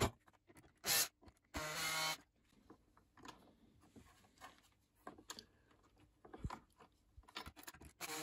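Makita cordless impact driver run in two short bursts, about one and two seconds in, backing screws out of the wooden brake mount, then light clicks of screws and wooden parts being handled, and the driver starting again at the very end.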